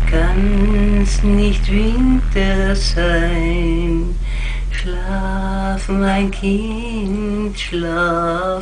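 A solo voice singing a slow lullaby melody in held notes over a low, steady drone.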